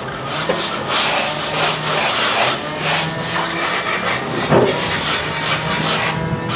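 Hand plastering float scraped and rubbed in repeated strokes over fresh cement render on a wall edge, about two strokes a second, over a faint steady hum.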